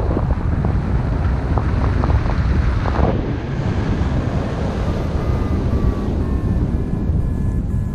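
Wind buffeting the microphone, with the faint high whine of a distant aircraft engine coming in about halfway through and slowly falling in pitch.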